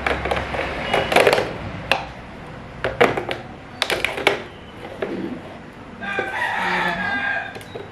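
Hard plastic parts of a baby activity walker clicking and knocking as a teddy-bear toy piece is pushed and turned into its socket on the front tray. About six seconds in there is a longer pitched sound of a second or so.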